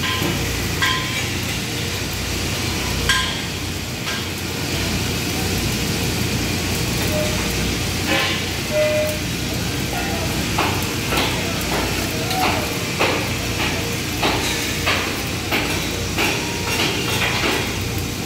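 Electric arc welding crackling and hissing steadily over workshop noise. From about halfway, a run of sharp metal-on-metal knocks comes about twice a second.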